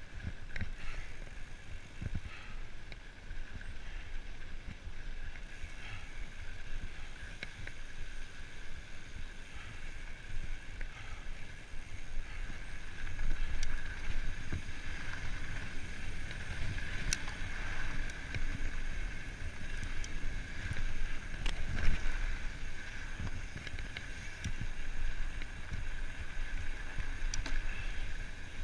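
Mountain bike rolling fast down a dirt trail: a steady rumble of knobby tyres on dirt and wind on the microphone, under a steady higher buzz from the bike. Scattered clacks and knocks sound as the bike hits bumps, the loudest about 13 and 22 seconds in.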